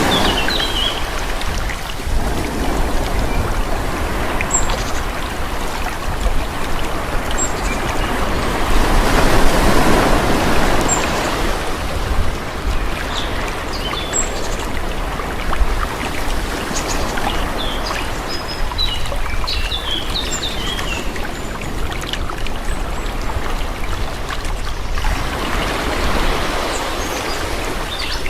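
Calm sea: small waves washing in and drawing back, swelling about a third of the way in and again near the end. Birds chirp briefly now and then above the water, most often about two-thirds of the way through.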